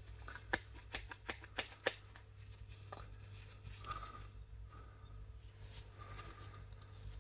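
A quick run of about five sharp light clicks in the first two seconds, then a few fainter knocks, from a rebuilt brake caliper being handled and turned in gloved hands, over a steady low hum.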